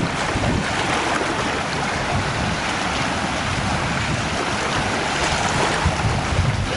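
Steady wind buffeting the microphone, mixed with small lake waves washing against a rocky shore.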